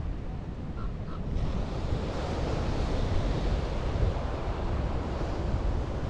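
Surf washing on a beach, swelling about a second and a half in, under a steady low rumble of wind on the microphone.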